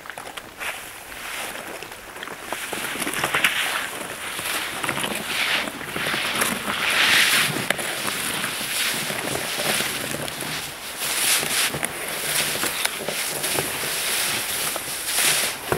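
A person thrashing in a hole in pond ice, splashing icy water and breaking and crunching thin ice while hauling himself out after falling through. Irregular splashes and crackles, louder from about two seconds in.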